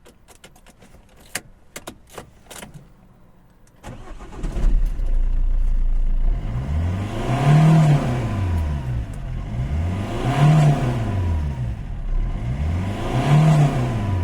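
Opel/Vauxhall Corsa D engine starting after a few clicks, then idling with its speed swelling up and falling back about every three seconds. This hunting, rough idle is put down to a faulty alternator.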